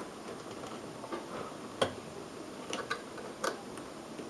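Several small clicks and ticks of a RAM module being wiggled up out of its motherboard slot, the sharpest about two seconds in.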